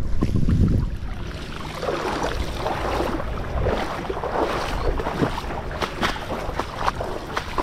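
Shallow saltwater splashing and sloshing around a cast net as it is hauled in and thrown for bait minnows, with many small sharp splashes and drips. A low wind rumble on the microphone during the first second.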